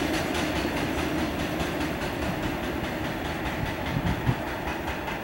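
Freight train of tank wagons rolling past on the rails, the wheels clicking over the rail joints in a steady rhythm over a continuous rumble as the last wagon moves away, with one louder knock about four seconds in.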